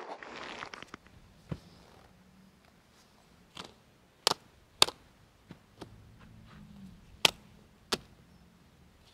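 Sharp clicks and light knocks as gear is handled at a motorcycle, about eight separate ones a second or so apart, the loudest in the middle and near the end. Footsteps on dirt fade out in the first second.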